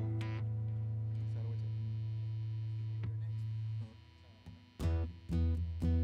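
Live rock band playing a song intro on guitars: a low note is held for about four seconds and dies away, then chords are struck in a steady rhythm from about five seconds in.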